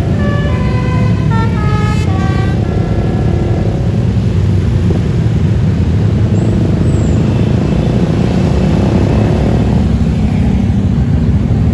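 A bus's musical telolet horn plays a quick run of stepped notes for about the first two and a half seconds, then stops. Under it and after it runs the steady low rumble of a bus engine and road traffic.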